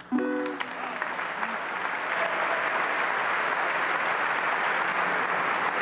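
Audience applauding steadily, beginning right after a brief final note of a song at the very start.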